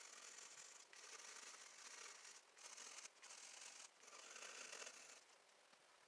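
Colored pencil shading on paper: a faint scratchy rubbing in runs of strokes, broken by short pauses, that stops about five seconds in.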